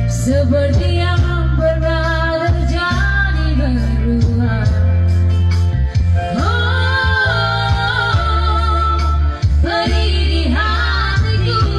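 Two women singing a duet into a microphone over backing music with a steady low bass. They hold a long high note about six seconds in.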